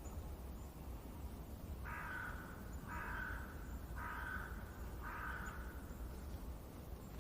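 A crow cawing four times, about once a second, over a steady low background rumble of outdoor ambience.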